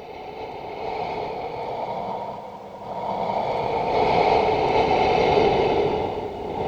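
Ghost breathing sound effect: processed, hissing breaths that swell and fade in slow waves, about two long swells.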